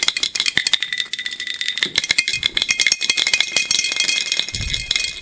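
Magnetic stir bar clattering rapidly and irregularly against the glass bottom of an empty Erlenmeyer flask on a homemade computer-fan stir plate. The bar is jumping about instead of spinning because it has not locked onto the rotating magnets. A steady high whine runs underneath.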